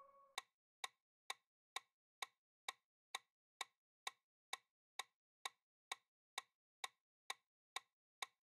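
Countdown-timer sound effect: a clock ticking evenly, about two ticks a second. The tail of a chime dies away at the very start.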